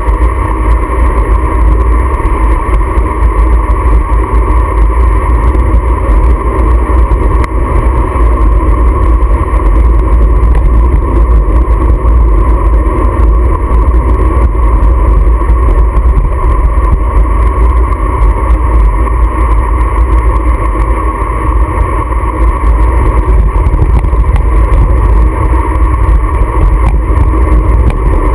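Heavy wind rushing over an action camera's microphone while riding along a highway at speed, with a steady drone underneath.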